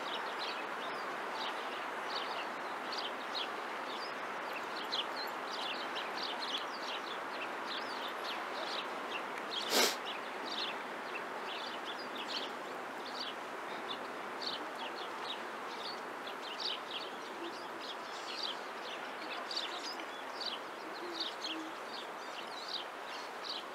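Small birds chirping, many short high calls repeating throughout over a steady hum of background noise. One sharp knock about ten seconds in.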